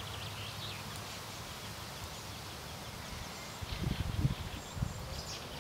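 Outdoor garden ambience: a steady faint hiss with a few short bird chirps. A few irregular low bumps come a little past halfway.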